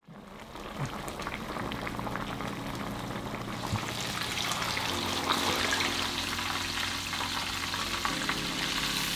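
Hot oil sizzling and crackling as turmeric-marinated mackerel steaks fry in a pan, getting louder a few seconds in.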